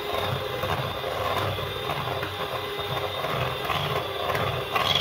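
Electric hand mixer running steadily, its beaters whisking cake batter in a stainless steel bowl.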